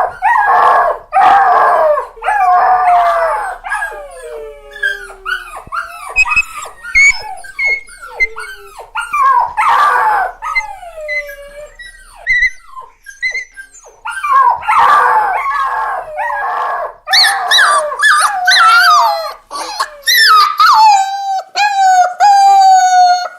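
Puppies crying: a run of high, sliding whimpers and yelps, mostly falling in pitch, with louder wailing cries among them, ending in one long drawn-out whine.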